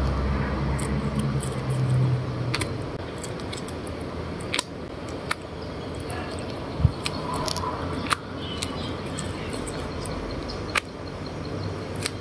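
A handmade paper-and-plastic fidget toy being handled and its dome pressed, giving scattered sharp clicks and faint crinkling. A low hum runs through the first two seconds or so.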